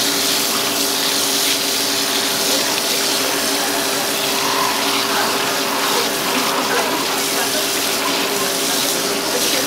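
Water spraying steadily from a spray nozzle onto a filleted black sea bream and a plastic crate, a loud even hiss as the fish is rinsed of scales and blood.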